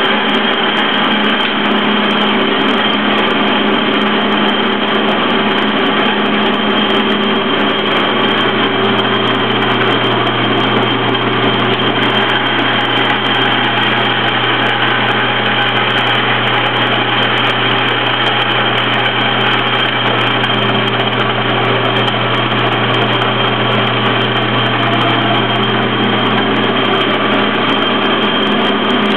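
Metal lathe running: a steady motor and gear-train hum with a high whine, the low hum growing stronger about eight seconds in.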